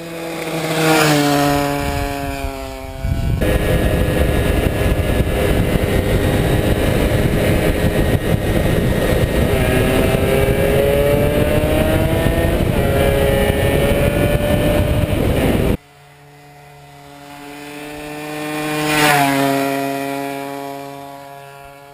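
125 cc two-stroke motorcycle engines. A bike passes by with its pitch falling. Then an engine is heard close for about twelve seconds under heavy noise, its pitch climbing as it revs. Near the end another bike passes with a falling pitch.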